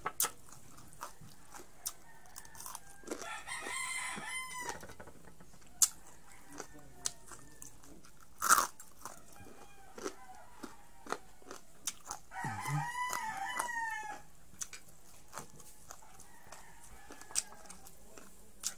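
Crisp bites and chewing of crispy fried pork strips: many short sharp crunches, the loudest about eight seconds in. A rooster crows twice in the background, about three seconds in and again about twelve seconds in, each crow lasting about a second and a half.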